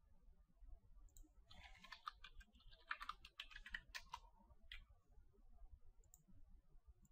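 Faint computer keyboard typing: a quick run of keystrokes from about a second and a half in to nearly five seconds, then a couple of single clicks near the end.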